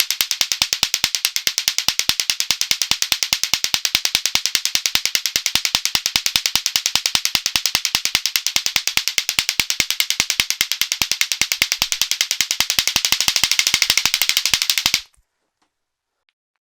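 Lato-lato clackers, two hard plastic balls on a string, knocked together in a fast, steady run of sharp clacks that stops suddenly near the end, followed by a few faint clicks.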